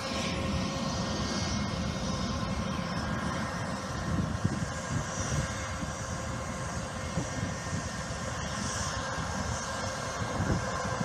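Airplane engines running steadily: a low, even engine noise with a few faint steady tones above it.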